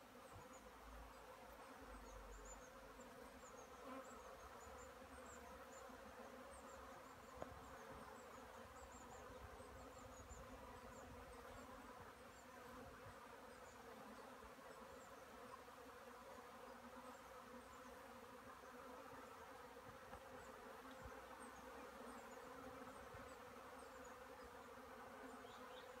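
Honeybees of a newly arrived swarm buzzing around their wine-barrel hive: a faint, steady hum.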